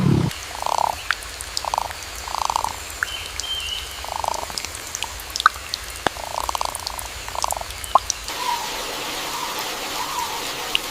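A frog calling in six short, buzzy croaks spaced a second or so apart, over steady heavy rain with scattered drips. After about eight seconds the croaks stop and the rain hiss grows fuller. There is a brief low thump at the very start.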